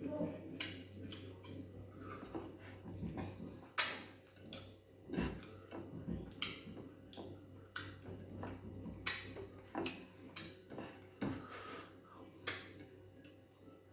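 Close-up eating sounds of fufu, egusi soup and meat: irregular wet mouth clicks and smacks from chewing, about one or two a second, over a steady low hum.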